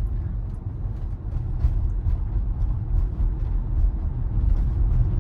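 Steady low road and tyre rumble inside a Tesla Model Y's cabin, rolling over a road with some snow on it.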